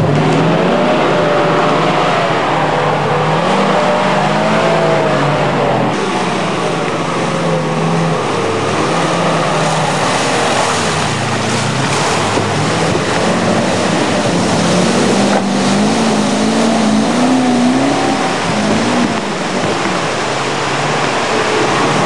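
An off-road 4x4's engine running hard, its revs rising and falling again and again over a steady rushing noise.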